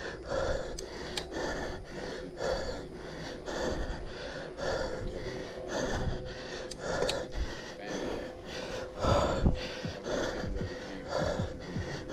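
A cyclist breathing heavily in a steady rhythm, about two breaths a second, out of breath from pedalling hard.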